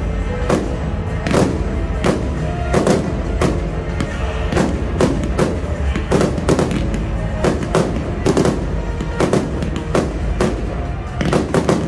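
Fireworks display: aerial shells and ground fountains banging and crackling, about two bangs a second, over music.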